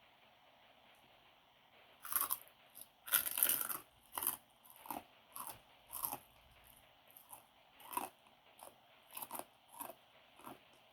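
A person biting and chewing crunchy food: quiet for about two seconds, then a run of irregular crunches, loudest just after they start.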